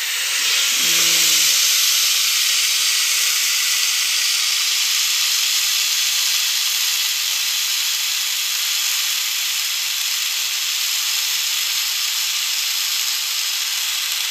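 Chicken breasts sizzling inside a closed electric contact grill: a loud, steady hiss of frying and steam that swells about a second in, just after the lid is brought down.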